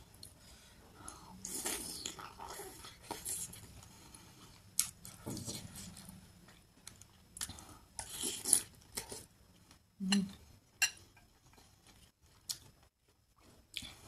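Close-up eating sounds: a person chewing wontons, with short wet mouth smacks and a sip of broth from a ceramic spoon about eight seconds in.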